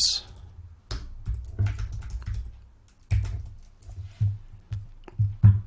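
Typing on a computer keyboard: an irregular run of keystrokes with short pauses between them.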